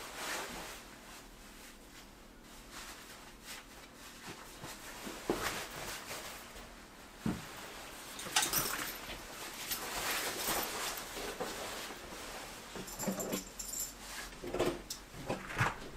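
Footsteps, clothing rustle and scuffing as someone puts on shoes, lifts a bag and goes out the front door, with several sudden knocks and clicks and a few short squeaks near the end.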